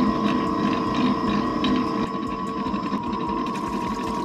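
Electric stand mixer's motor running with a steady whine while its paddle churns a thick batch of white slime in a steel bowl. In the first half the churning gives a low pulse about two or three times a second.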